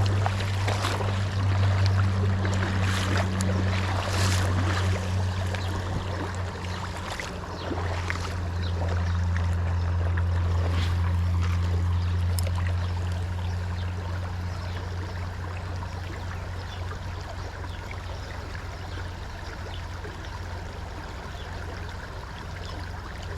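Flowing creek water, under a steady low hum that fades gradually through the second half. A few short knocks or splashes come in the first several seconds.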